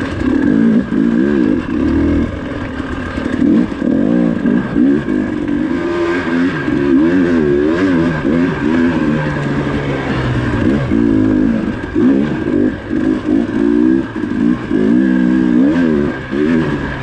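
KTM dirt bike's engine heard close up from the bike, revving up and down over and over as the rider works the throttle through the turns.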